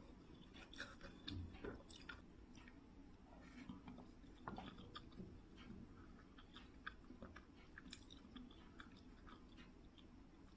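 Faint chewing of a mouthful of soft fried chazi noodles, with small wet mouth clicks scattered throughout.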